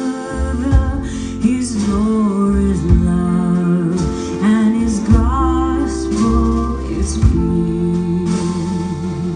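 Live music: a female vocal trio singing in close harmony, backed by accordion, electric guitar and double bass, with sharp hits roughly once a second.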